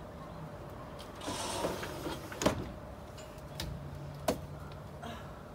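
A sliding door rolled open about a second in, followed by two sharp knocks as someone steps out onto the balcony. A faint steady low hum runs underneath.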